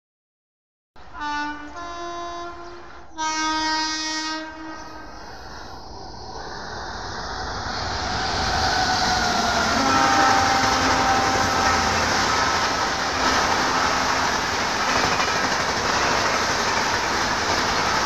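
Indian Railways WAP7 electric locomotive's horn, sounded in three blasts over about four seconds with a change of pitch between them, starting about a second in. It is followed by the rumble and wheel clatter of the passing express, which grows louder and then holds steady.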